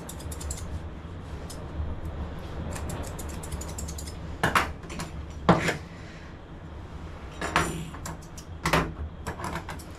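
Grooming scissors snipping the dog's coat in quick runs of clicks, at the start and again near the end. In between come a few louder knocks and clinks of metal tools on the grooming table, over a low steady rumble.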